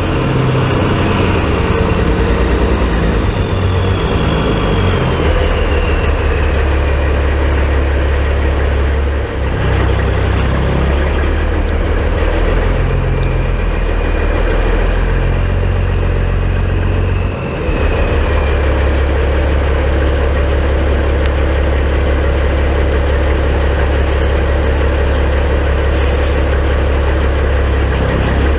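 Peterbilt 379 semi truck's diesel engine running steadily at low revs, dipping briefly twice. A high whistle falls in pitch over the first few seconds, and a fainter one returns about halfway through.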